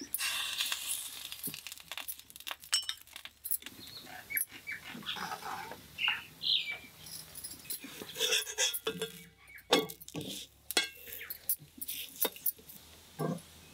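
Oil sizzling on a hot iron tawa under a ragi roti, with many sharp metal clinks as utensils are knocked on a hanging rack and a flat metal spatula scrapes and presses on the pan.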